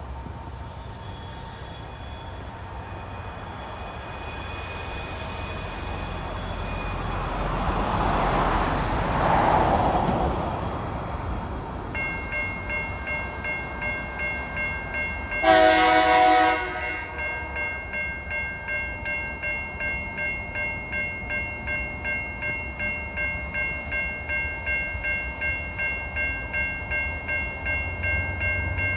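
A road vehicle passes, swelling and fading about eight to ten seconds in. About twelve seconds in, the level crossing's electronic warning bells start ringing in a steady, regular pulse and keep on. Near the middle, a TasRail diesel locomotive's horn sounds once for about a second, the loudest sound here, and the approaching locomotives' low rumble builds near the end.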